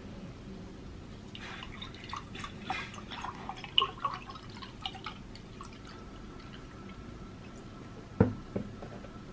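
Milk poured from a carton into a glass tumbler, splashing and dripping for about four seconds. A single sharp knock follows near the end.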